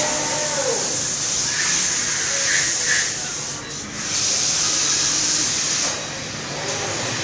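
Weinig Conturex CNC machining centre for wooden window parts running, a steady high hiss over a low machine hum. The hiss dips briefly about three and a half seconds in and drops in level near six seconds.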